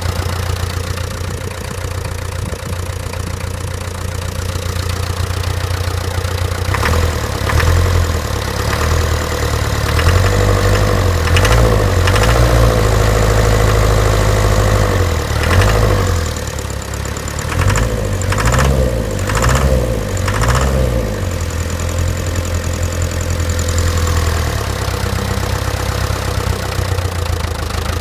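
Land Rover Series III four-cylinder diesel engine running with a knock. It idles at first, the engine note shifts and gets louder through the middle, then it settles back to idle. The owner cannot find the cause of the knock even with a new fuel pump, fuel filter and injector pipes.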